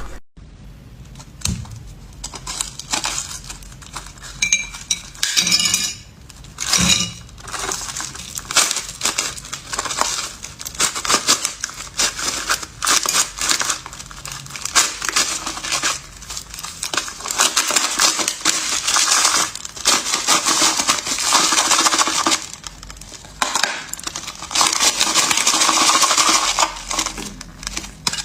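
Ice being bitten and chewed, crunching and cracking in dense irregular runs with short pauses between mouthfuls.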